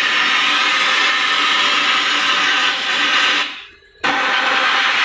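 Compressed-air siphon spray gun blasting cleaning fluid into a rear axle housing, a loud steady hiss. It shuts off about three and a half seconds in and starts again about half a second later, flushing iron dust out of the housing before the differential is refitted.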